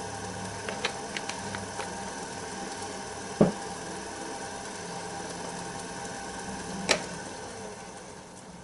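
Wood lathe running at low speed with a steady hum, with a few light clicks and two sharper knocks, about three and a half and seven seconds in.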